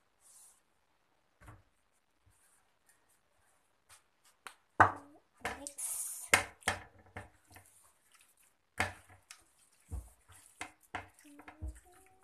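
Scattered knocks and clinks of a plate and utensils on a kitchen counter while raw chicken pieces are seasoned and handled, the loudest knock about five seconds in, with a short hiss about halfway through.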